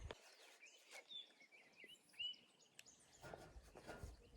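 Near silence with faint, short bird chirps scattered through it and a soft tick a little past two seconds in.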